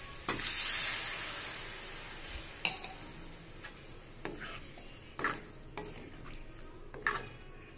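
Water poured into a hot kadhai of fried chickpeas and masala sizzles in a sudden burst, the hiss fading over the next few seconds. A steel spoon stirs the gravy, clinking against the pan about half a dozen times.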